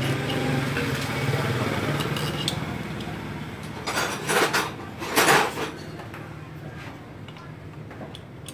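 Metal tools and engine parts clinking and scraping against the bare aluminium cylinder head of a Honda Wave 110i engine during assembly. Scattered light clicks come first, then two louder rasping scrapes about four and five seconds in.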